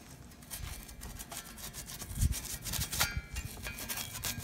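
A gloved hand rubbing finish onto a blackened steel stool frame: irregular scrubbing strokes, with a heavier knock about two seconds in.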